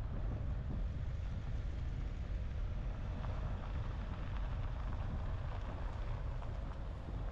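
A vehicle on the move with a steady, fluctuating low rumble, and wind buffeting the microphone.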